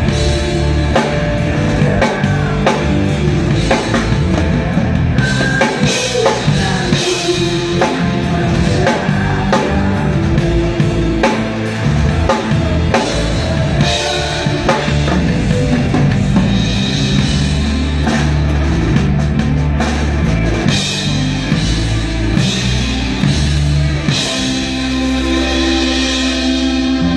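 Rock song playing with a drum kit played along to it: a steady beat of kick drum, snare and cymbals over guitar and bass.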